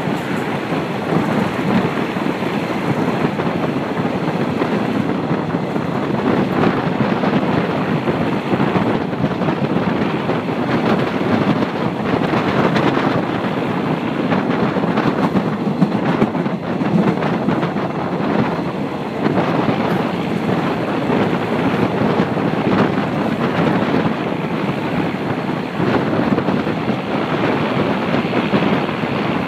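Wind rushing over the microphone held out of a moving passenger train's window, mixed with the train's running noise; a steady loud rumble with small swings in level.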